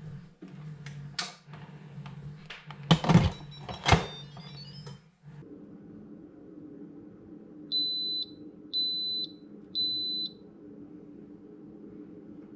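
Handling clatter and two loud knocks about three and four seconds in, as the lid goes onto a Pampered Chef electric multicooker. Then the cooker's control panel beeps three times, each a high steady half-second beep, about a second apart.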